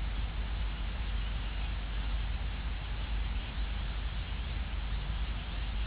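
Steady outdoor background hiss with a low rumble on a nest-cam microphone. There are no distinct calls, knocks or changes.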